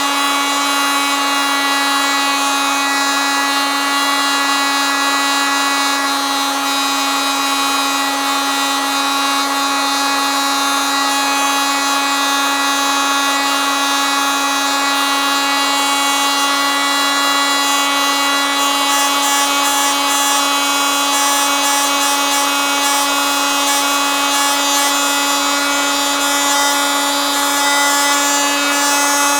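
Oscillating multitool running steadily: one unchanging pitched drone with a rasping edge.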